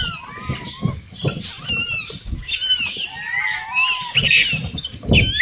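Rhesus macaques squealing and chirping while they feed on corn, many short high calls rising and falling and overlapping. There is a dull thump just before the end.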